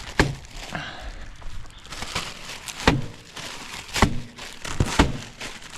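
A frozen block of leftovers in a bag being struck against a hard surface to break it up: several sharp thuds about a second apart. The block is frozen solid and does not break apart.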